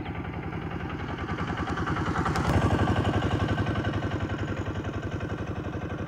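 An engine running steadily with an even throb, growing louder about two and a half seconds in, then easing back.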